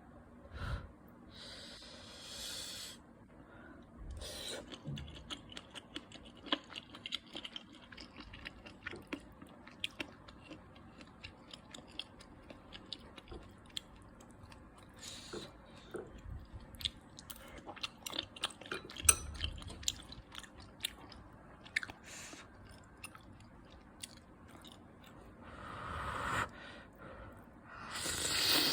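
A person chewing spicy tteokbokki rice cakes, with many small wet mouth clicks. A louder rushing noise comes near the end.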